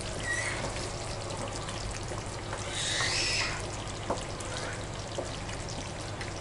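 Thick, oily chicken chaap gravy simmering in a frying pan as a spatula stirs it: a steady sizzle with wet squelching, a louder swish about three seconds in and a light knock of the spatula against the pan a second later.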